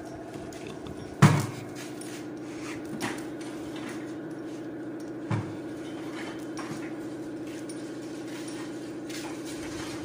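Three sharp knocks from engine teardown work in a workshop: one loud one about a second in and two softer ones near three and five seconds, over a steady machine hum.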